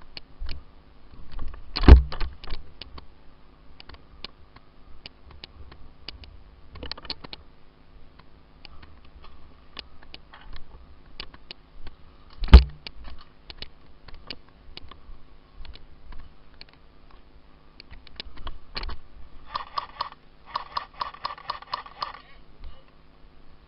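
Airsoft guns firing: scattered sharp clicks and snaps, two much louder cracks about 2 and 12.5 seconds in, and rapid full-auto bursts near the end.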